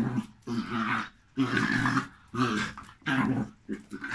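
A dog growling in a string of short growls, about six in four seconds.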